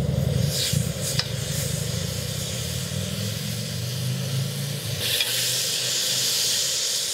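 Marinated chicken sizzling on the hot grill plate of a Coleman 4-in-1 propane cooking system as it is laid on with a fork. A low rumble fades about five seconds in, just as the sizzle turns into a loud, steady hiss.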